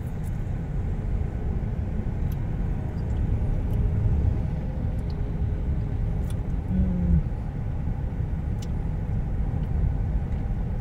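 Steady low rumble of a car's engine and tyres on a cracked asphalt lane, heard from inside the cabin, with a few faint ticks.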